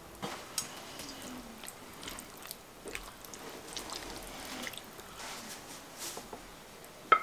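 A ladle stirring and scooping thick vegetable stew in a pot: soft squelching and light scattered knocks, with one sharp clink near the end.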